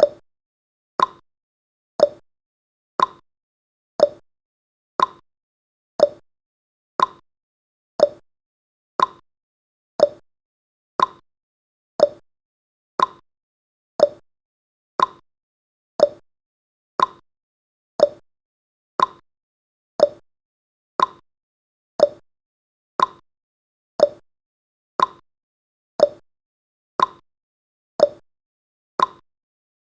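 Countdown timer's tick sound effect, one short sharp tick each second, in an even, unbroken rhythm.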